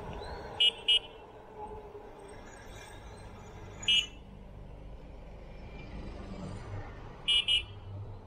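Short, high electronic beeps, two then one then two, spread over the few seconds, above the steady rumble and wind noise of a slow ride.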